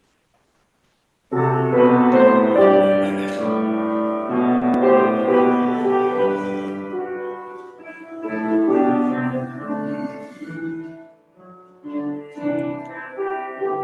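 Piano playing the introduction to a hymn in full chords, starting suddenly about a second in, with a short pause between phrases near the end.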